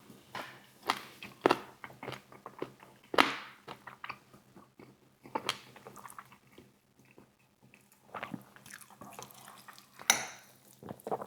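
Close-up chewing and biting of a KFC fried chicken wing: irregular wet mouth smacks and small crunches, a few sharper and louder than the rest.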